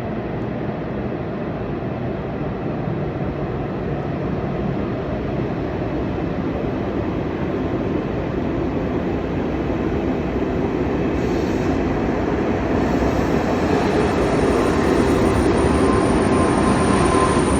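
KTX high-speed train running along the platform track, its rumble growing steadily louder, with a thin whine and a high squeal joining in near the end.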